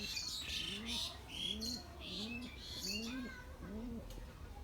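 Pigeons cooing: a run of short, low coos, each rising then falling in pitch, repeating about every two-thirds of a second. Small birds chirp high above them, mostly in the first half.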